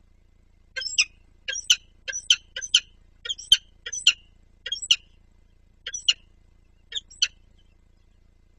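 Bird giving short, sharp chirping calls, often two or three in quick succession, repeated roughly once a second and stopping about seven seconds in.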